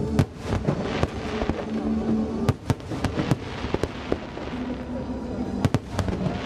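Aerial fireworks going off: sharp bangs at irregular intervals, with a cluster of them around the middle, over continuous crackling.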